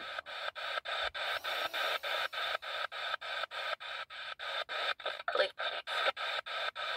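P-SB7T Spirit Box sweeping up the FM band, a hiss of radio static chopped about three or four times a second as it steps from station to station. About five seconds in there is a brief louder snatch of broadcast sound, which the uploader captions as a voice saying 'I already f***ing said'.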